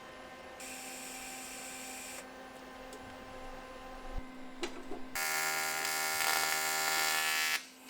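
Electric welding arc on aluminium. A short, quieter arc with a steady hiss starts about half a second in and lasts under two seconds. A few clicks follow, then a louder, steady buzzing arc of about two and a half seconds that stops sharply just before the end.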